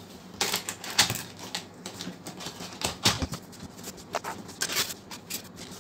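Cardboard box being opened by hand: an irregular run of short scrapes, clicks and rustles as the flaps are pulled back and the packing inside is handled.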